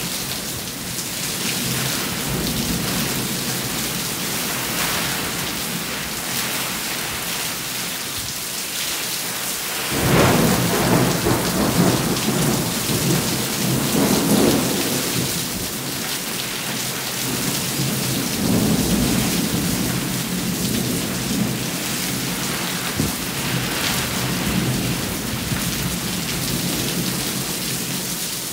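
Steady rain falling through a thunderstorm. About a third of the way in a long rumble of thunder breaks in suddenly and rolls on for around ten seconds, swelling again twice before it fades.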